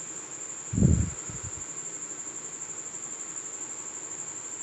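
A steady high-pitched insect trill, pulsing finely and unbroken. About a second in comes a dull low thump, the loudest sound, followed by a few softer knocks.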